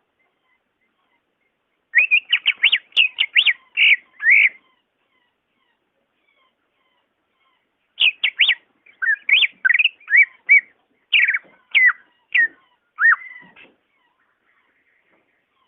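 Cucak ijo (green leafbird) singing: two bursts of quick, sweeping whistled notes, the first about two seconds in and a longer, more varied phrase starting about eight seconds in, with pauses between.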